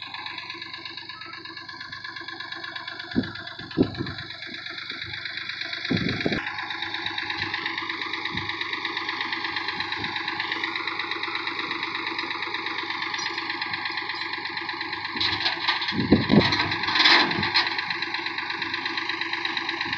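Tractor-loader-backhoe engine idling steadily with a fast, even pulse. A few knocks and clanks sound over it about three and four seconds in, around six seconds, and in a louder cluster around sixteen to seventeen seconds.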